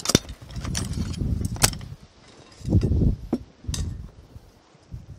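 Raw mutton pieces handled on a tray and a stainless steel colander moved about, giving a few sharp metallic clinks among dull low thuds and knocks.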